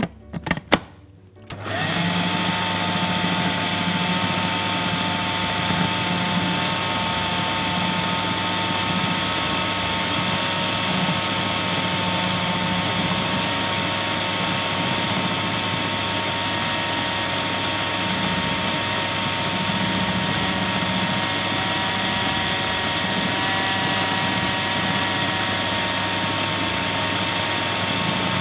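Electric food processor (kibbeh chopper) closed with a few clicks, then starting up about two seconds in. Its motor whine rises quickly, then it runs steadily, grinding a kofta mixture of minced meat, onion and soaked bread into a paste.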